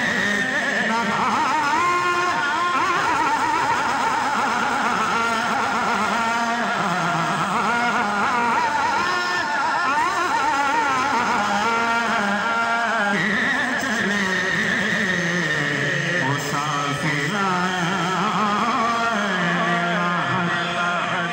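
A man singing a devotional kalam into a microphone, with long, wavering melismatic runs over a musical accompaniment.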